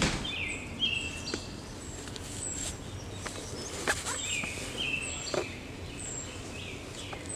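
Wild birds singing: high, thin notes about once a second with lower whistled phrases between them, and a few sharp clicks.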